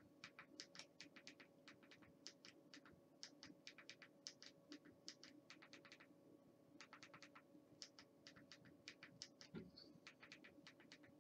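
Faint, rapid clicking of buttons pressed in quick runs while a network gateway address is keyed in on an on-screen number pad, with a short pause about six seconds in. A faint steady hum lies underneath.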